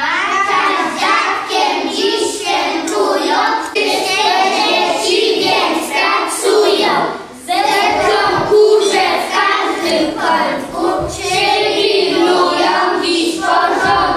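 A class of young children singing together, with a short break about seven seconds in.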